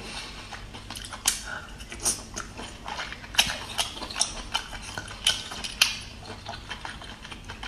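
Chewing a mouthful of braised abalone: irregular wet mouth clicks and smacks, about one or two a second.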